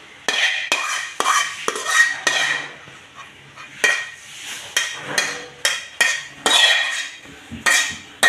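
A cooking utensil scraping and knocking against a wok as sauce is scooped out of it: a rapid run of sharp clinks and scrapes with a ringing tone, about two a second.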